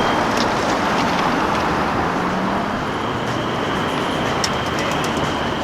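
Street traffic: the steady rumble and tyre noise of cars going by, with a few light clicks and a faint high whine coming in about halfway.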